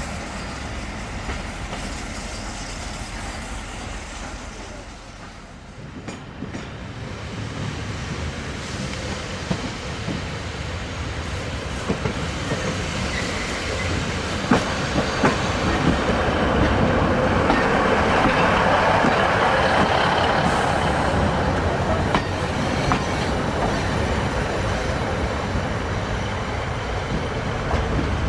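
Class 153 single-car diesel railcar drawing into a platform: its underfloor Cummins diesel engine running and its wheels clicking over rail joints. It grows louder as it approaches, is loudest a little past the middle, then eases slightly as it slows.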